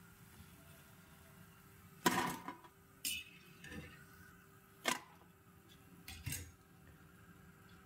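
Metal kitchen utensils clinking and clattering against a pan, about five times over a few seconds, the loudest about two seconds in, over a faint steady hum.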